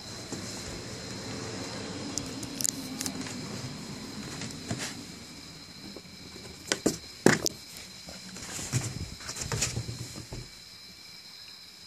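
Phone handling noise and a hand scraping and tapping on a hard floor while picking something small up, with a few sharp clicks about seven seconds in and a cluster of light taps after them. A faint steady high-pitched whine runs underneath.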